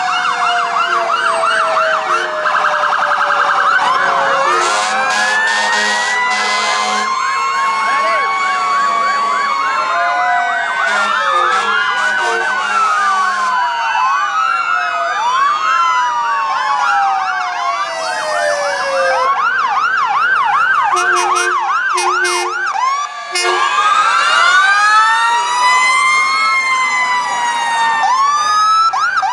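Several emergency vehicle sirens on passing fire trucks and ambulances sounding at once, slow wails and fast yelps rising and falling over one another.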